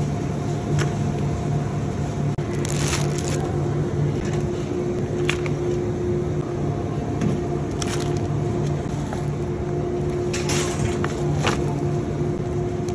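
Wire shopping cart rattling and plastic produce packaging rustling and knocking, several short sharp clatters over a steady low hum.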